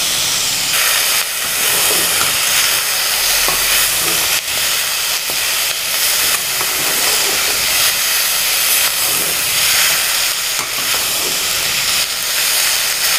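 Sliced shallots, garlic and ginger sizzling in hot coconut oil in a metal pressure cooker, with a steady hiss. They are being stirred with a slotted metal spoon that scrapes and taps against the pan now and then.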